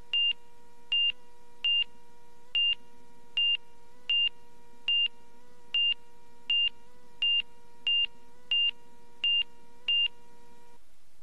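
Cockpit alert beeps from the Garmin avionics of a Van's RV, heard over the intercom: a high single-pitch beep repeating about every three-quarters of a second, coming slightly faster toward the end, over a steady engine hum. Near the end the beeping pauses and the hum drops away.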